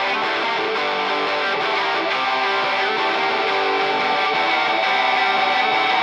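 Distorted electric guitar playing alone in a hardcore punk recording, holding sustained chords that slowly grow louder, with no bass or drums under it.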